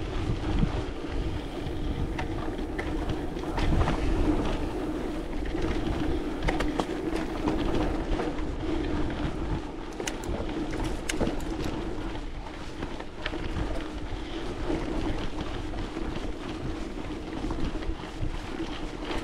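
Wind buffeting the microphone over a steady low hum, with a few faint clicks about halfway through.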